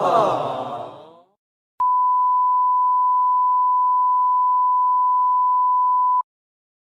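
A censor bleep: one steady, pure beep tone held for over four seconds, starting with a click about two seconds in and cutting off suddenly near the end. Before it, a short, loud sound effect with a wavering pitch.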